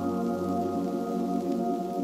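Lofi hip hop instrumental in its closing seconds: soft sustained chords ringing on while the low bass drops out about a second in, the music slowly getting quieter.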